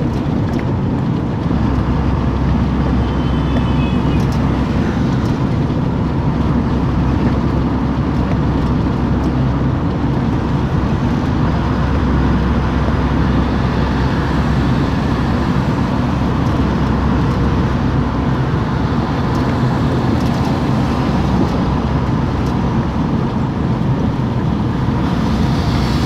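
Steady engine and tyre road noise heard from inside a vehicle cruising on an expressway, a continuous low rumble.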